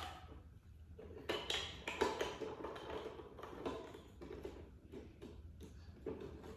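Irregular light clicking and clattering of small hard parts being handled and fitted together.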